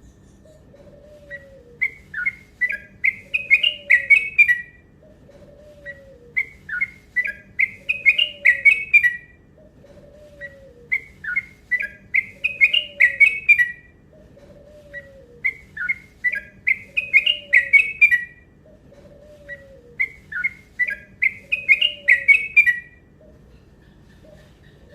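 Yellow-vented bulbul (trucuk) song: five near-identical phrases of chirpy notes, each about three seconds long, rising in pitch and quickening, repeating about every four and a half seconds. Underneath, a soft lower falling note repeats about once a second.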